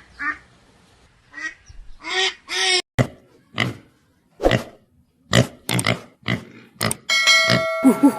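A series of short animal calls, about ten of them one after another, followed near the end by a steady, many-toned call.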